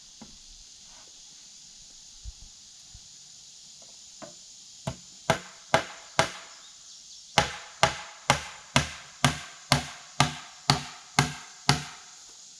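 Hammer driving nails through boards into green oak posts. Four blows come first, then after a short pause a steady run of about ten blows, roughly two a second.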